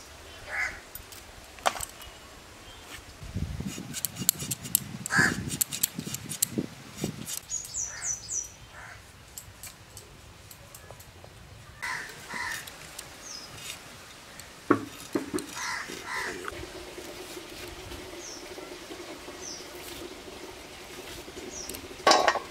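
Crows cawing on and off, with small birds chirping, over sharp clicks and knocks of vegetables and star fruit being cut on a bonti blade. A steady low hum runs through the second half.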